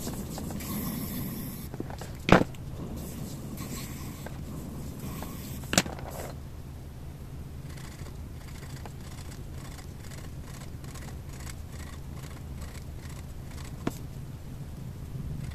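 Marker pen drawing on a paper disc: light scratchy strokes and small taps of the tip as lines and short dash marks are drawn. Two sharp knocks, about two and six seconds in, stand out above it, over a steady low hum.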